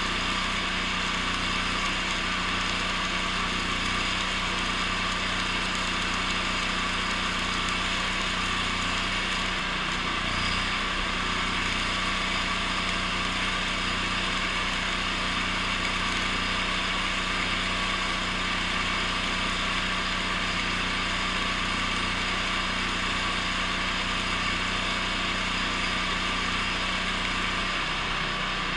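Stick-welding arc burning a 6010 electrode on steel I-beam, a steady hiss with crackle. Under it runs the steady hum of the welding machine.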